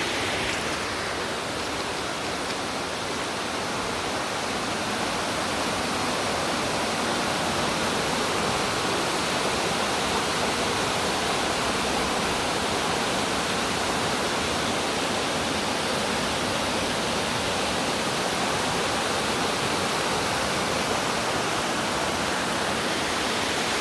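Steady rushing of a mountain stream's waterfall, an even roar of falling water that holds level throughout.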